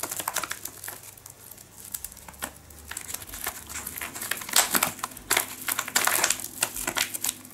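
Foil-lined stand-up pouch crinkling and rustling as fingers work its top open at the ziplock. The crackling is loudest a little past halfway through.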